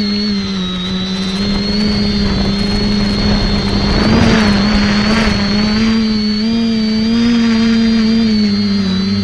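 X550AIOP multirotor's electric motors and propellers buzzing steadily, heard from the camera on the craft, the pitch wavering slightly as the throttle changes. A rush of wind noise rises over it about four seconds in and lasts a second or so.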